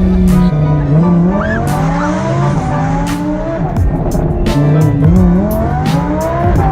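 Lamborghini engine accelerating hard, its pitch climbing and dropping back several times as it shifts up through the gears.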